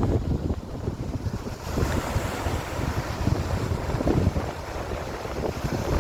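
Wind buffeting the microphone in gusts over the sound of sea waves; the hiss of washing surf swells up about two seconds in.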